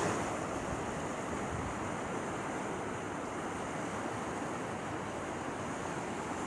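Fast, turbulent floodwater rushing steadily, a continuous wash of moving-water noise.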